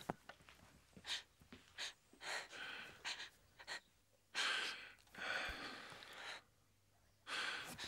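An old man's heavy, ragged breathing in distress: a string of gasping breaths in and out, some short and some drawn out for about a second, with pauses between them.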